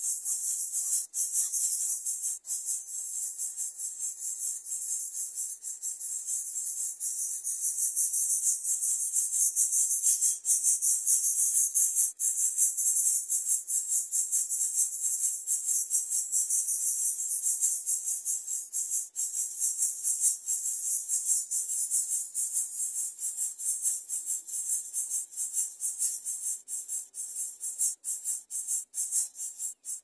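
Steady high-pitched buzzing of insects, a fast pulsing chorus that runs on without a break.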